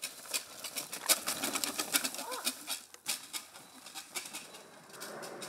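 Small bicycle ridden down a woodland dirt trail: tyres rolling over the dry forest floor, with a dense run of crackles and clicks from twigs and litter under the wheels and the bike rattling.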